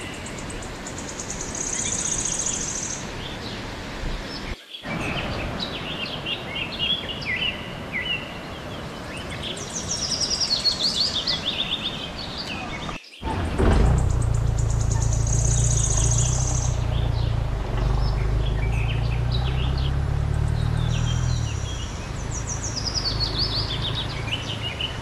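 Birds calling and chirping in repeated trills over a steady hiss of running water. Halfway through, a strong low rumble joins in and runs on.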